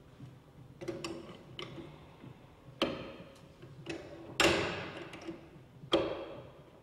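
Irregular metallic clanks and knocks with a short ring after each, from the pipe clamps of a small butt fusion welding machine being closed and tightened around the pipes. The loudest knock comes near the middle.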